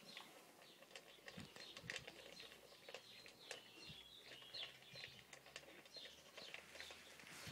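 Cane Corso dogs and puppies eating dry kibble from a metal bowl: faint, quick, irregular crunching and clicking. High bird chirps come and go over it.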